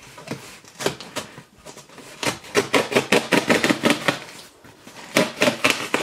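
Fingers and nails tapping and rubbing on the lid of a corrugated cardboard box, as a run of quick clicks. There are a few scattered taps at first, a dense flurry in the middle and another short flurry near the end.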